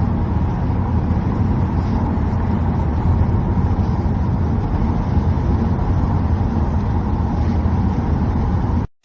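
Steady low road-and-engine rumble of a moving car, heard inside the cabin. It cuts off suddenly near the end.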